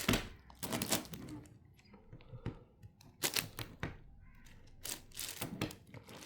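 A plastic 10x10 puzzle cube being turned by hand: bursts of irregular clicking and clacking as the layers are twisted, with short pauses between the groups of turns.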